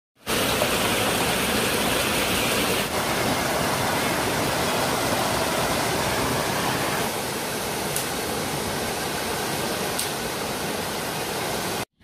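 Water of a small waterfall rushing and splashing down over rocks, a steady hiss that shifts slightly in tone about three and seven seconds in and cuts off abruptly just before the end.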